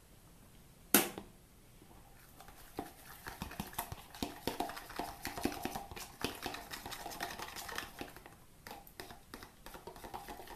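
A sharp knock about a second in, then a fork stirring a runny mix of mashed banana and honey, with quick repeated clicks against the bowl and a short pause near eight seconds.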